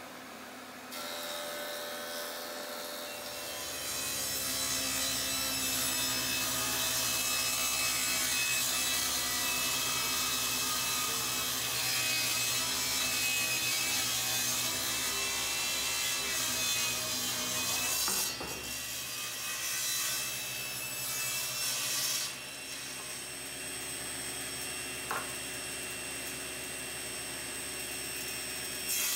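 SawStop table saw running and cutting walnut boards, a steady blade-through-wood noise over the hum of the motor, with brief breaks between cuts.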